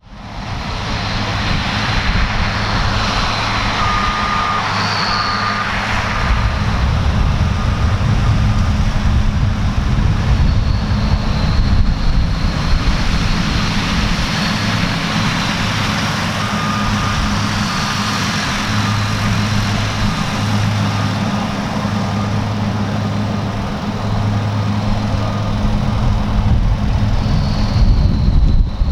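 Large farm diesel machinery running steadily under load: a deep engine drone with a high, thin whine on top.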